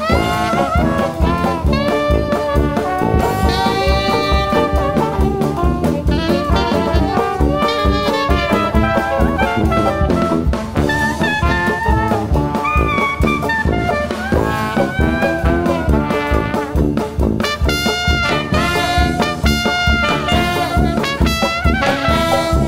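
Background music: brass-led swing jazz, with horn lines over a steady beat.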